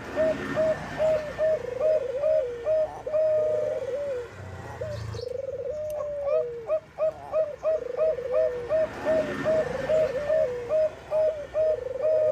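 Bangkok perkutut (zebra dove) cooing: fast runs of short staccato coo notes, about four a second, broken by longer falling phrases. It is the female's call to a male.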